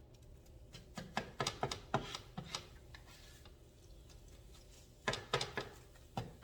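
Spatula knocking and scraping against a frying pan of scrambled eggs, in two short runs of light clicks: one about a second in, another near the end.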